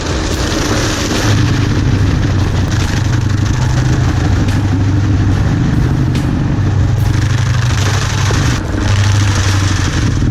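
An engine running steadily and loud, with a brief dip about eight and a half seconds in.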